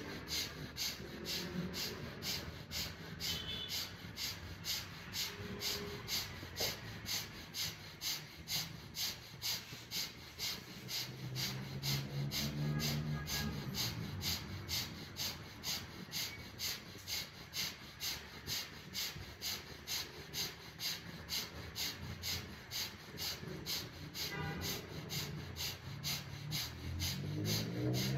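Rapid, forceful breaths through the nose in an even rhythm of about two a second: a round of fast pranayama breathing.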